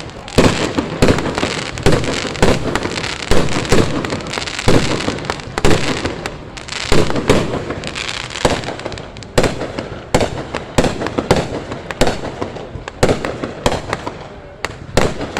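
Fireworks going off in rapid succession: many sharp bangs, several a second, over continuous crackling.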